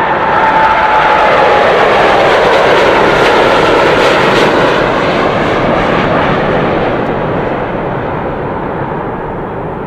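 Airplane taking off: a loud, steady engine rush with a whine that fades out about a second and a half in, then the noise slowly grows fainter over the last few seconds.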